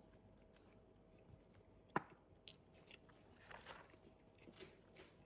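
Faint chewing of a mouthful of food, with one sharp click about two seconds in.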